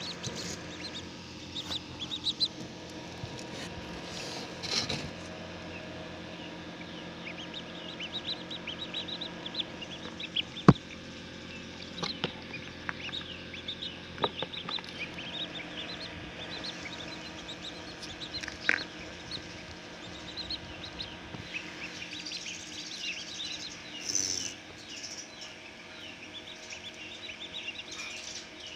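Many short, high chirps repeating throughout, typical of chicks peeping, over the steady hum of an incubator's machinery. A single sharp knock about ten seconds in.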